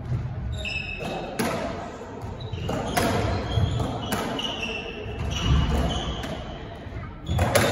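Squash rally: the ball is struck by rackets and hits the walls in sharp, echoing cracks, irregularly about once a second. Between shots, court shoes squeak on the wooden floor.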